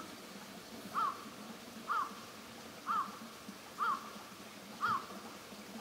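A bird calling, five short rising-and-falling notes evenly spaced about a second apart.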